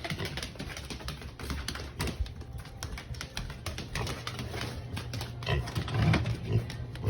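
Rapid, irregular clicking and tapping, with a few short low grunts from a pig about five and a half to six and a half seconds in.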